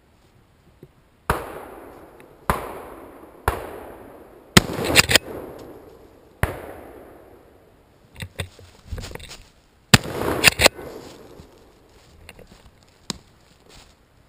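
A string of about eight shotgun shots in uneven groups, each sharp report trailing off in a long echo through the woods. The loudest come in quick pairs around the middle and about ten seconds in. Lighter knocks fall between them.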